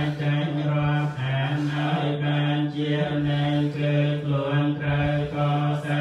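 Theravada Buddhist monks chanting in Pali, held on one steady low pitch with short breaks for breath.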